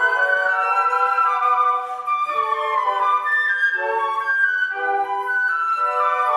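Flute quartet playing: four concert flutes sounding several parts at once, with quick note changes and a line stepping downward in the first couple of seconds.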